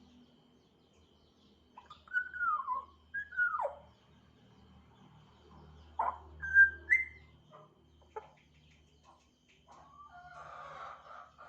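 African grey parrot whistling and chattering: two whistles sliding downward in pitch a couple of seconds in, a click and a short high whistle that steps up in pitch around the middle, then a run of warbling calls near the end.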